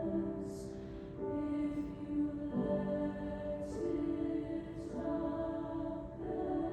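High school choir singing slow, sustained chords, moving to a new chord every second or so, with soft 's' consonants heard a few times.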